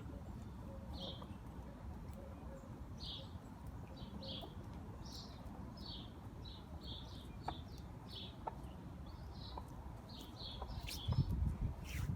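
Small birds chirping: short, high chirps repeated irregularly, at times several a second, over a steady low background rumble. Near the end a louder, low rustling noise comes in.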